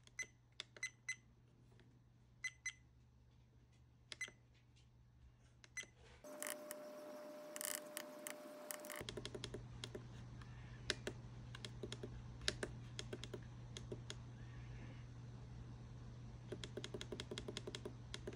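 Small plastic buttons on a Viofo A119 dashcam clicking as they are pressed over and over to step through the date and time settings, with short electronic beeps in the first few seconds. A steady tone with a hiss sounds for about three seconds partway through, and the clicks come faster after it.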